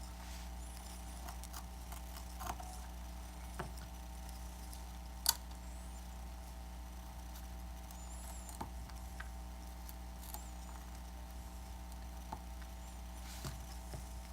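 Scattered small clicks and taps of hand tools working on an iPad's parts, with one sharper click about five seconds in, over a steady low hum.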